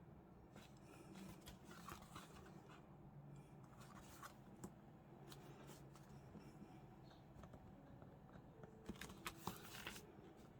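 Faint scuffing and rustling of paper and card being handled and inked, with a few light taps about nine to ten seconds in; otherwise near silence.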